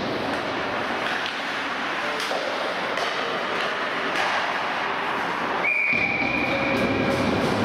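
Ice hockey play on the rink: a steady scrape and hiss of skates on ice, with scattered sharp clacks of sticks and puck. Near the end a steady high tone holds for about two seconds.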